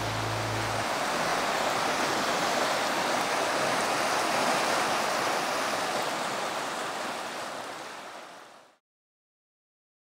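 River water rushing over rapids: a steady, even rush that fades over the last couple of seconds and stops just before the end.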